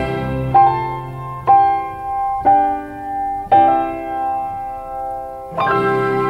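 Piano playing slow chords, one struck about every second and left to fade, then a fuller chord coming in near the end.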